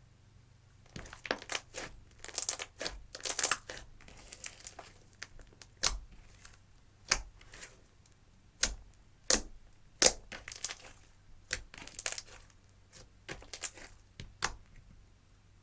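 Clear slime mixed with eyeshadow being worked by hand, giving an irregular run of sharp crackles and pops that stops about a second before the end.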